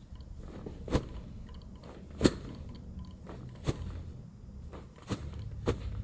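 Sharp cracking clicks from the hip and lower back as the practitioner's hands press down on her hip during a prone chiropractic adjustment: about five pops at intervals of a second or so, the loudest a little over two seconds in.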